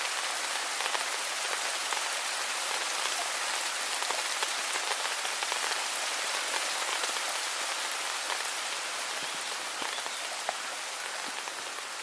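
Steady rain falling: an even hiss with many single drops ticking through it, easing slightly near the end.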